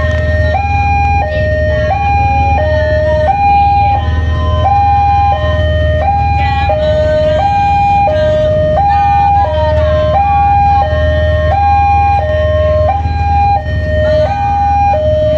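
Railway level-crossing warning alarm: an electronic two-tone signal switching evenly between a higher and a lower note about every 0.7 s, over a steady low rumble. It sounds while the crossing is closed for an approaching train.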